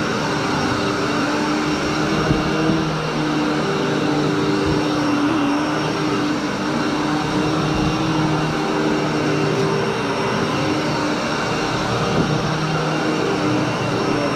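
Royal commercial upright vacuum cleaner running steadily with a motor hum as it is pushed back and forth over carpet, pre-vacuuming dry soil before the carpet is cleaned.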